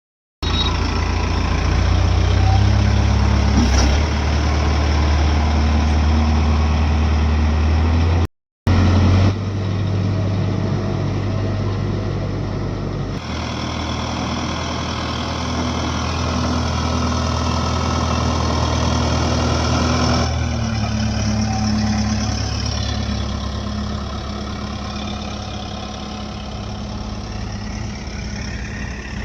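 Diesel engine of heavy earth-moving machinery running steadily. The sound drops out for a moment about eight seconds in, and its tone shifts twice after that.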